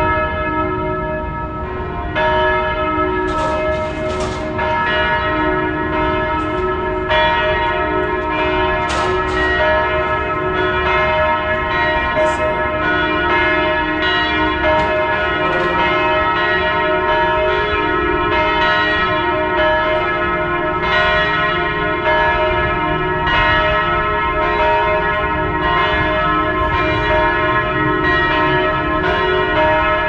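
Church tower bells ringing, struck again and again, with the long ringing tones of each strike overlapping into a continuous peal. A low steady rumble runs underneath.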